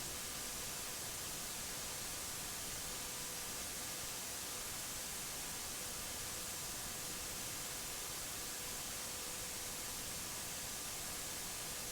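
Steady, low-level hiss of static with no change, with a few faint steady tones under it.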